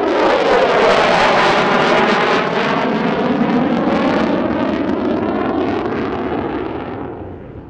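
F-16C fighter jet passing with its afterburner lit: a loud jet roar with a sweeping, phasing tone as it goes by. It dies away near the end.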